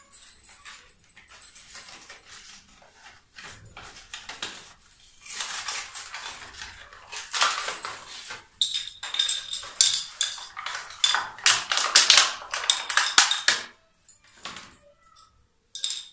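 Plastic blister packaging crinkling and tearing as adhesive wall hooks are pulled out of their pack, in quick rustling bursts that are densest in the middle, with a brief high squeak of plastic.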